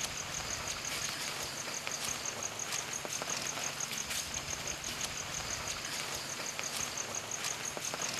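Night ambience: an insect chirping in a steady high-pitched pulse, about four chirps a second, over a soft even background hiss.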